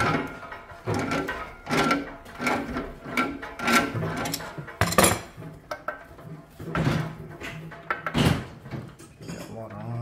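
A series of irregular knocks and clatters, roughly one every half second to a second, from tools and parts being handled during plumbing work.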